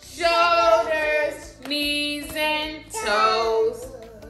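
A woman and small children singing a song together in about three held, melodic phrases.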